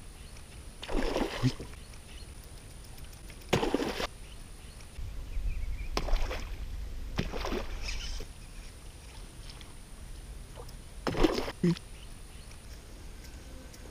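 Water splashing around a fishing kayak: about five short splashes spaced a few seconds apart, over a low rumble.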